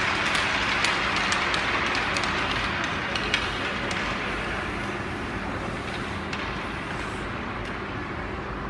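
Ice hockey play on a rink: a steady hiss of skates on ice, broken by scattered sharp clicks of sticks and puck. The hiss eases a little after about four seconds.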